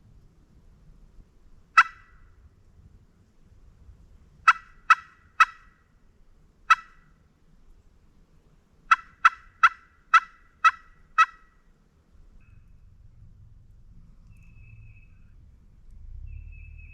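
Turkey yelping in short, sharp notes: a single yelp, then three quick ones and another single, then a run of six. Faint low rumble afterwards.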